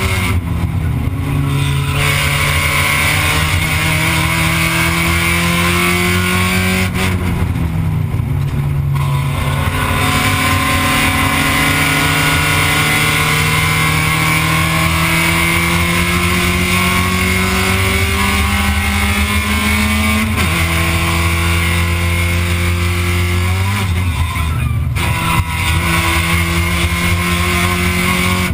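Spec Miata's four-cylinder race engine heard from inside the cockpit at full racing effort. Its pitch climbs steadily under load and falls sharply about four times as the driver changes gear.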